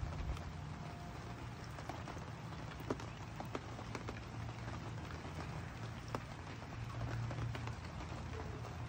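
Steady spring rain falling, with scattered louder drips tapping at irregular intervals over a low steady rumble.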